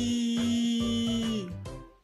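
A woman's voice holding one long 'ee' vowel, the phonics sound of the letter Y, steady in pitch, then dropping and fading about one and a half seconds in. Background music with a steady low beat plays under it.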